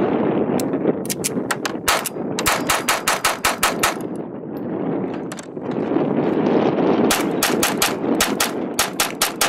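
Semi-automatic .22 pistol firing Gemtech subsonic .22LR rounds in quick strings of sharp shots. A few scattered shots and a rapid string of about a dozen come in the first four seconds, then after a pause of about three seconds another rapid string of about ten.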